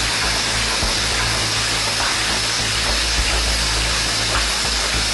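Automatic cap lining machine running: a steady hiss over a low, even hum.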